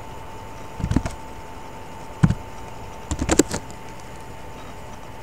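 A few short clicks and taps: one about a second in, another just past two seconds, and a quick cluster a little after three seconds, over a faint steady hum.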